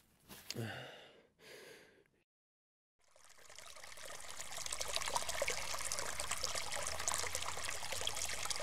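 Two short breathy sounds, a moment of complete silence, then water trickling and running steadily, fading in over a couple of seconds.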